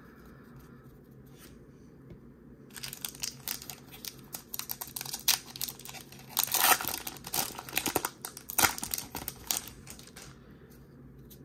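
A trading card pack's plastic wrapper being torn open and crinkled in the hands, a dense crackling that starts about three seconds in and dies away near the end.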